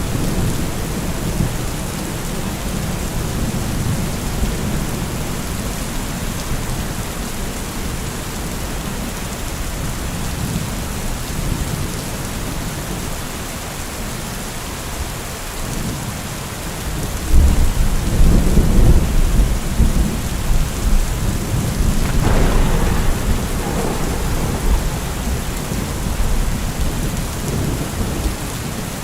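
Steady rain with rumbling thunder. A louder, deeper thunder roll comes in a little past halfway and carries on for several seconds, with a sharper crack a few seconds into it.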